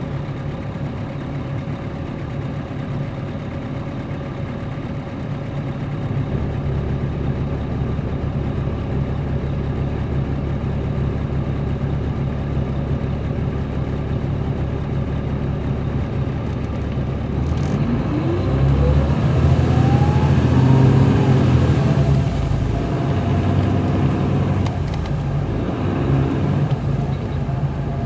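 A 2007 MCI D4500CL coach's Caterpillar C13 diesel engine, heard from inside the bus, running steadily under way. About two-thirds through it pulls harder and grows louder, with a whine rising in pitch over a few seconds.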